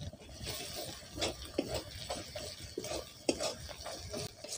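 Long metal spatula stirring and scraping fried onions and ground spices around a steel kadai, in irregular scrapes and light clinks over a faint sizzle from the hot oil.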